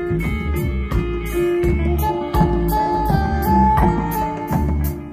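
Live reggae band playing an instrumental passage: a lead guitar line over bass, drum kit and Rastafarian nyabinghi hand drums, keeping a steady beat.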